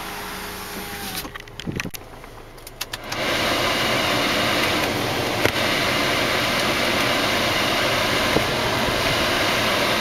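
Car climate-control blower fan switched on about three seconds in, then blowing a steady, loud rush of air through the dash vents. Before it starts there are a few clicks from the controls.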